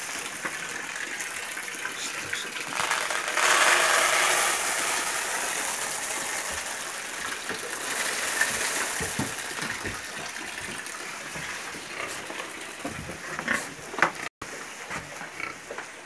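Shelled corn poured from a sack into a wooden pig trough, a rattling hiss of kernels that is loudest a few seconds in, with pigs at the trough making pig sounds.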